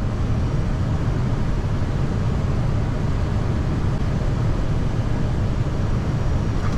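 Steady rush and low rumble of airflow and engines heard inside an Airbus A320 cockpit on short final approach.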